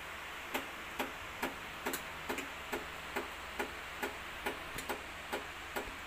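Krups espresso machine switched to its steam setting, ticking regularly about twice a second while it works up to steam.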